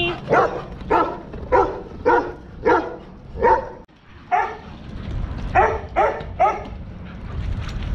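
A dog barking about ten times: a run of six barks roughly half a second apart, a single bark after a short pause, then three quick barks.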